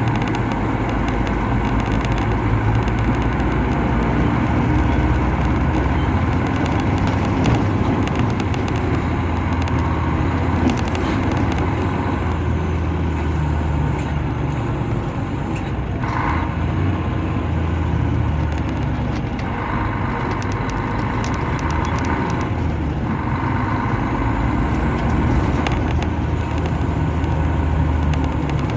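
Mercedes-Benz O500-RS bus diesel engine running under way while the coach is driven, a steady deep drone whose pitch shifts a little with engine speed. A higher whine comes in briefly twice after the middle.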